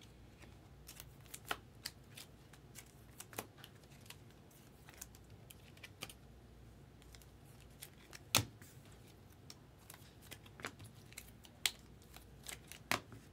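Light, scattered clicks and taps of trading cards and a rigid plastic top loader being handled and a card slid into the holder. The loudest click is about eight seconds in, with a few more near the end.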